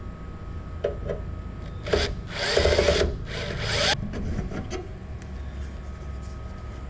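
Cordless drill/driver running in short bursts, the longest about a second, as it backs out the screws of an inverter's metal wiring cover. Near the middle a click and a rattle follow as the cover comes loose and is lifted off.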